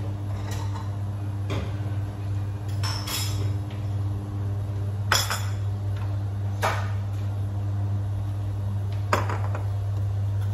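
Several sharp clinks and knocks of china bowls and a spoon being set down beside a pot on a glass-top cooktop, the loudest about five seconds in, over a steady low electrical hum from the cooktop heating the pot of water.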